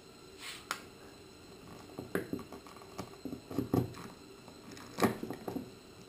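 Hands handling small mounting hardware against a fiberglass boat console: a brief rustle, then scattered light clicks and knocks, the loudest about five seconds in.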